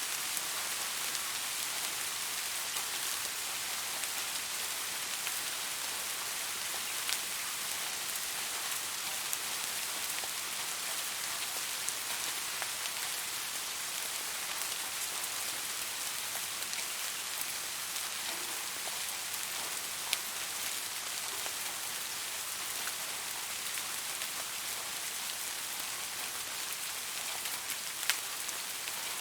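Soft rain falling steadily, an even hiss of drops with occasional sharper drop ticks, a few of them louder, one near the end.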